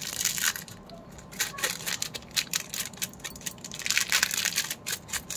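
A small plastic-film candy packet (Cadbury Gems) crinkling and tearing as it is pulled open by hand, in several louder bunches of crackle.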